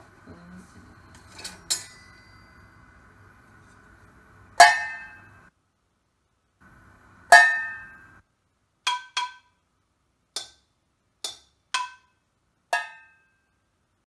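Hanging metal pots and pans struck one at a time with a wooden spatula, each hit ringing briefly with a metallic, bell-like tone. There are about ten irregularly spaced strikes: two light ones early, the two loudest at about four and a half and seven seconds in, then a quicker run of lighter hits.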